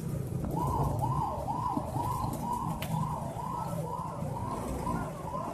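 A siren warbling, its pitch rising and falling about twice a second, starting about half a second in, over steady low traffic noise.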